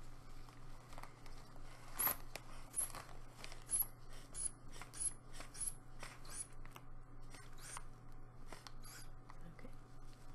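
Rubber hand bulb of a blood-pressure cuff (sphygmomanometer) squeezed in a dozen or so quick strokes, about two a second, pumping up the cuff. The strokes begin about two seconds in and stop near the end.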